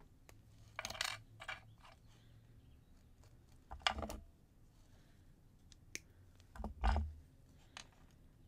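Jewelry pliers and small metal pieces clinking and knocking as they are handled and set down on a wooden tabletop: a handful of scattered taps and a short rattle, with one heavier knock about seven seconds in.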